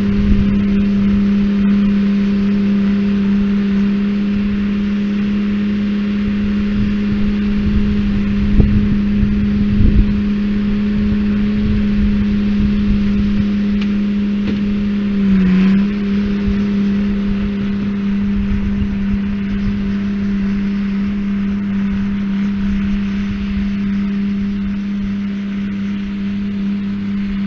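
Tractor engine running at a steady speed during hay baling, over an uneven low rumble. About halfway through, its pitch dips briefly and then recovers.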